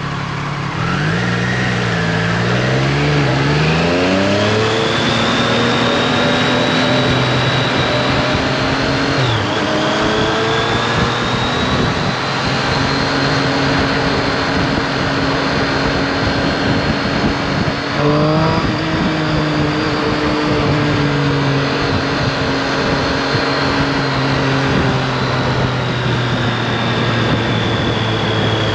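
Triumph Street Triple RS's 765 cc three-cylinder engine pulling away from a standstill, its revs rising steeply in the first few seconds. It changes up about 9 s and 18 s in, then runs at a steady cruising speed with wind rushing over the microphone.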